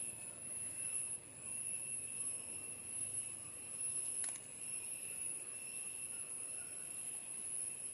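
Faint, steady high-pitched drone of insects over a low hiss, with a single click about four seconds in.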